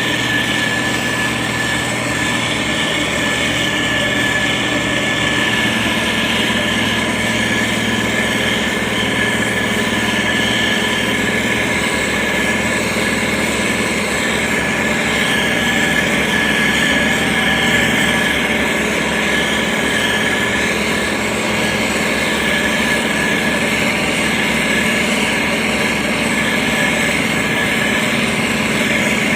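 Heavy road-construction machinery running steadily: an engine drone with a steady high whine over it.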